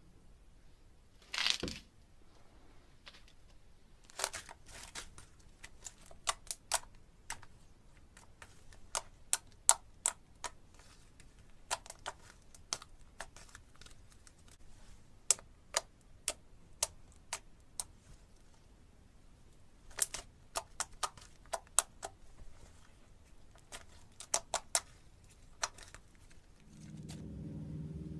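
Slime being squeezed and poked, giving sharp little pops and clicks in irregular clusters, with a short rustle about a second and a half in. A low hum comes in near the end.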